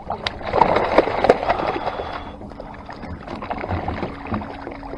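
A shot cownose ray thrashing at the surface beside the boat, splashing the water hard for the first two seconds or so, then splashing more lightly.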